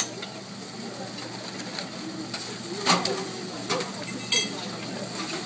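Eggs sizzling on a diner's flat-top griddle, with a few sharp clacks of metal spatulas on the steel, the loudest about three seconds in.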